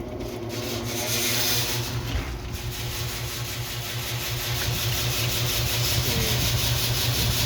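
A motor running with a steady low hum that pulses evenly several times a second, with a rasping, rubbing noise over it.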